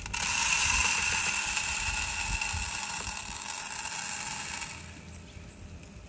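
Birdseed pouring into a bird feeder: a steady rush of seed rattling in that starts abruptly and eases off about five seconds in.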